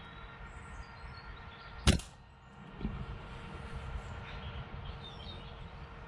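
A single shot from a Brocock Pathfinder PCP air rifle, a sharp short crack about two seconds in, followed about a second later by a fainter dull thud. Faint birdsong in the background.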